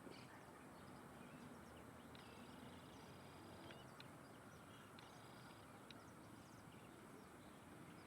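Faint bird calls: scattered high chirps and two short buzzy trills, about two seconds in and again about five seconds in, over a low outdoor hiss.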